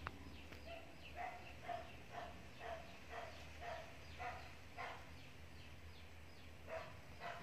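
A short animal call repeated about twice a second, some eight times, then twice more near the end after a pause. A sharp click at the very start is the loudest moment.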